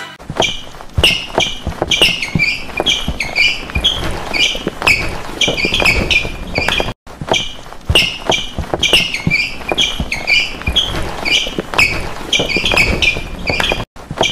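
A looped sound clip of rhythmic thumps and taps mixed with short, high squeaks. The same seven-second stretch plays twice, cutting out for an instant about halfway through.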